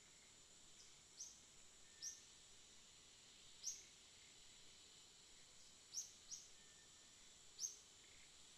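Faint outdoor ambience: a steady high insect drone, with six short, high chirps that sweep downward, two of them close together about six seconds in.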